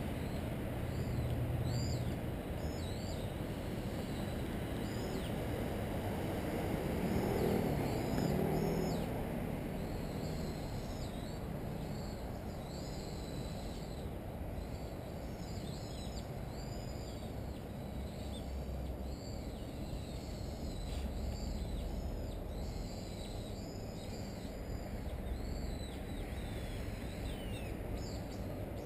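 Small birds chirping at irregular intervals over a steady low rumble of city traffic, which swells briefly about eight seconds in as a vehicle passes.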